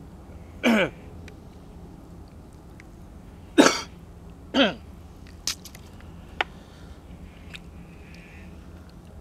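A man coughing and clearing his throat three times, each short burst falling in pitch, the middle one the loudest, with a few small clicks between them.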